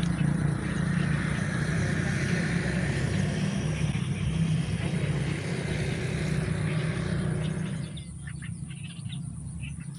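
An engine running steadily with a low hum; its higher-pitched noise drops away about eight seconds in while the low hum goes on.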